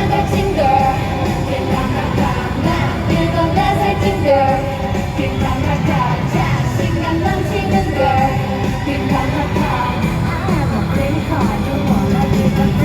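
K-pop girl group singing a pop song over a loud backing track through arena speakers, recorded on a phone from the audience.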